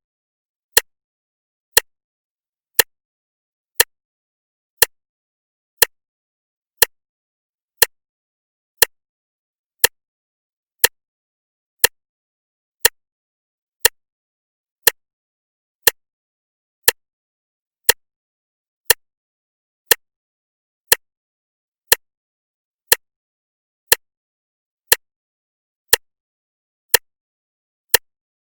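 Clock ticking once a second, each tick a sharp click with silence between.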